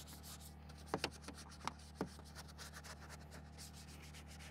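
Faint rubbing of a microfiber towel on a cloth truck seat, with a few light clicks between one and two seconds in, over a low steady hum.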